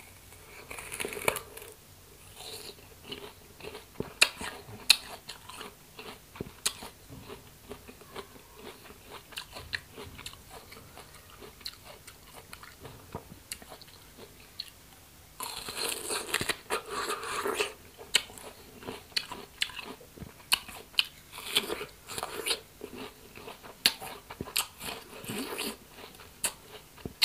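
A person biting into and chewing crisp rose apples (wax apples): crunchy bites and wet chewing. A little past halfway through there is a louder run of dense crunching for about two seconds.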